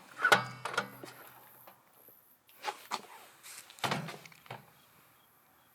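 Microwave oven door being handled: a short creak with clicks, then a few scattered knocks and clicks.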